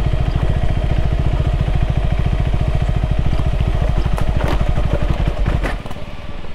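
KTM 390 Adventure's single-cylinder engine running steadily with a fast, even pulse, with a few clattering knocks a little past halfway. It then cuts out near the end.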